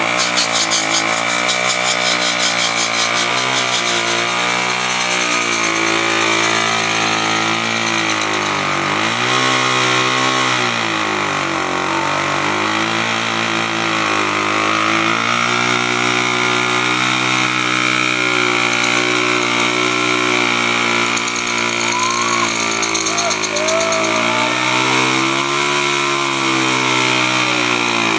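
Honda CT110 postie bike's small single-cylinder four-stroke engine revving hard through a long burnout on its knobby rear tyre. The revs sag and climb again a couple of times as the throttle is worked.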